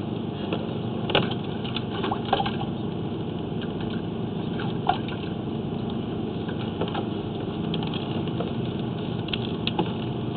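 An engine idling steadily, with scattered light clicks and taps over it.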